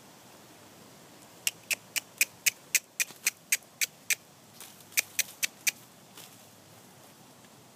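A person clucking to a horse with sharp tongue clicks, about four a second, to urge it on at the jog. There is a run of about eleven clicks, a short pause, then four more.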